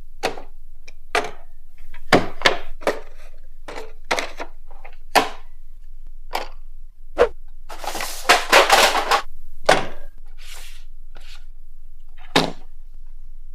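Toy RC car box and packaging being handled and opened: a series of separate sharp knocks and clicks, with a burst of rustling packaging about eight seconds in.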